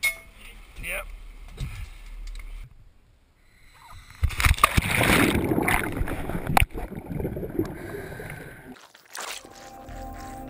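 Water splashing and gurgling, starting suddenly about four seconds in, as a scuba diver enters the sea and goes under, with bubbling heard through the underwater camera housing and a couple of sharp knocks.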